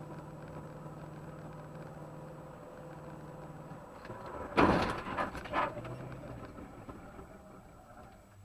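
Steady car engine and road drone heard from inside a moving car, with a loud sudden sound about four and a half seconds in and a shorter one a second later.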